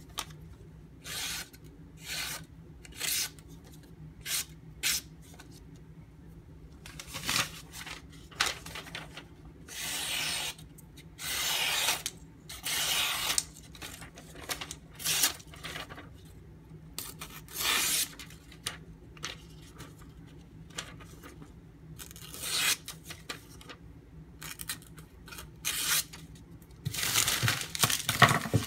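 Freshly sharpened Santoku blade drawn in irregular short strokes, each a scraping, rasping hiss lasting from a fraction of a second to about a second and a half.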